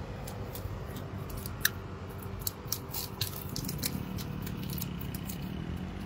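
Scattered small clicks and rustles, like things being handled, over a steady low rumble.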